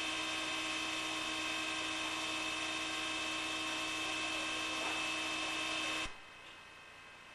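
A steady electrical hum made of several held tones over a noisy bed, cut off abruptly about six seconds in, leaving only faint hiss.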